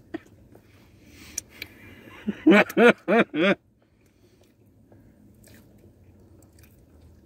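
People chewing pizza, with small mouth clicks and smacks, broken about two and a half seconds in by a short laugh of four quick 'ha's, the loudest sound; soft chewing goes on after it.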